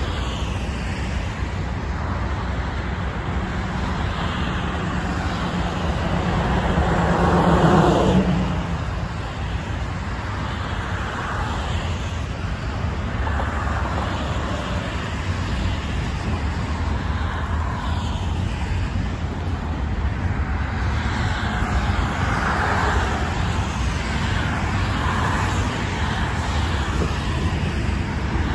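Steady multi-lane highway traffic, with tyres and engines of passing cars. One louder vehicle goes by close, building to a peak about eight seconds in.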